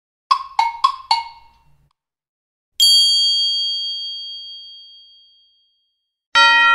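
Bell sound effects: four quick metallic clinks, then a single bright bell ding that rings out for a couple of seconds, and a chime tone striking near the end.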